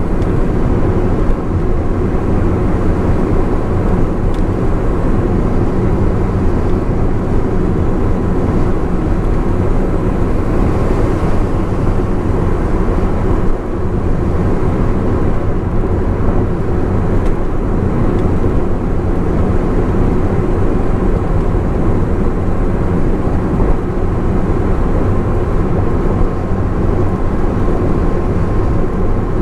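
Honda S660's small turbocharged three-cylinder engine running at steady expressway speed, with a steady rush of tyre and road noise.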